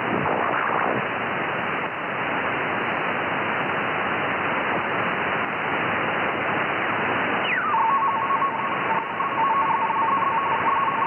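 Yaesu FTdx10 shortwave receiver being tuned across the 31-metre band in upper sideband: a steady static hiss with faint whistles sliding past as it crosses signals. About seven and a half seconds in, a whistle falls in pitch and settles on a radio teletype signal, two tones warbling back and forth rapidly.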